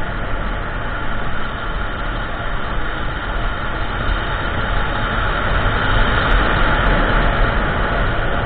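Steady rush of wind and road noise from a Kymco Xciting 400i maxi-scooter riding at road speed, with no change in pace.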